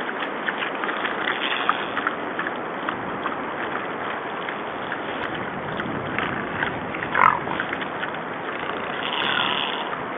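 Wild boars squealing and squeaking over a steady background hiss, with one loud squeal falling in pitch about seven seconds in and a fainter one near the end.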